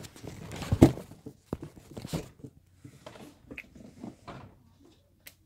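Handling noises on a tabletop: one sharp knock about a second in, then scattered light clicks and rustles that die away.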